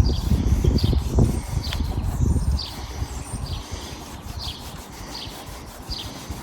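A small bird chirping over and over, short falling high chirps a little under a second apart. A low rumble sits under the first two and a half seconds, then fades.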